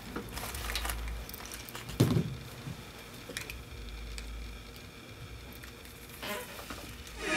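Small handling noises at a desk: paper rustling and light clicks and taps as things are moved. There is a sharper knock about two seconds in and another about six seconds in.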